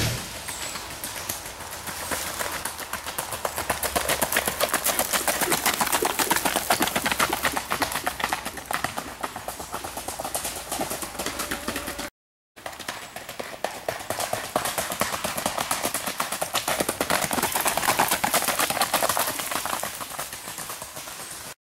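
Racking horse's hooves on a gravel road in a fast, even four-beat speed rack: a rapid, steady patter of hoofbeats. It cuts out briefly about halfway through and then picks up again.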